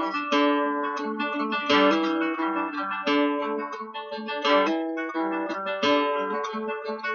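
Acoustic guitar strumming chords in an instrumental passage, with a strong strum about every second and a half and lighter strums between.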